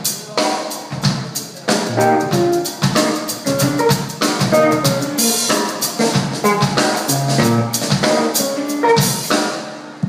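Live rock band playing: a drum kit with snare, bass drum and cymbals driving under an acoustic-electric guitar and bass. The playing fades out near the end as the song finishes.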